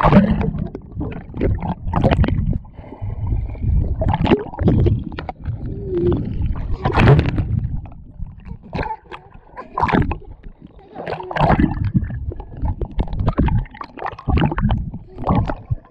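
Lake water sloshing, gurgling and splashing over a camera held at the water's surface, in irregular surges every second or two as it dips under and comes back up.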